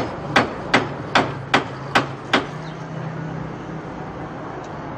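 Hammer blows on a chisel at a house door to force it open: seven sharp, evenly spaced strikes, about two and a half a second, that stop about two and a half seconds in.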